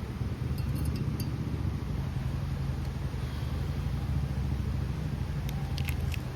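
Campfire crackling, with a few sharp pops about half a second in and a cluster again near the end, over a steady low rumble.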